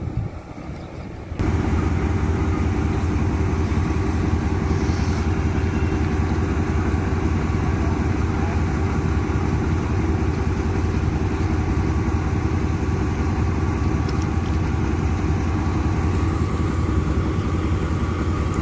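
Diesel-electric engine of a Pakistan Railways AGE-30 locomotive running steadily with a low, even drone. It comes in suddenly about a second and a half in.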